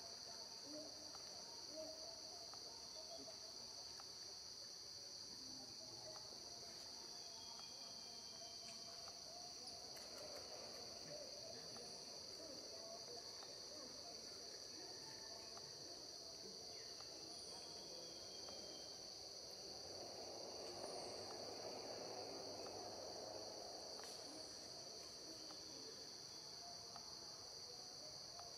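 Faint, steady high-pitched chorus of insects, crickets or cicadas, buzzing without a break.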